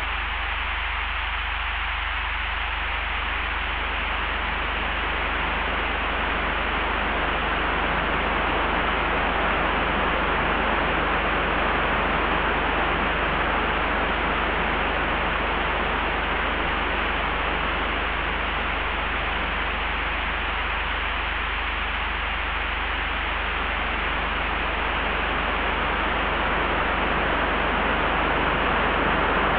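Layered wind ambience: a steady rushing hiss over a constant low rumble. It swells slowly, eases off, then builds again near the end.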